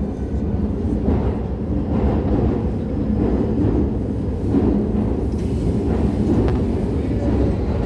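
Keio 9000 series electric train running through a tunnel, heard from inside the car: a steady low rumble of wheels on rail with a faint hum and scattered short clicks.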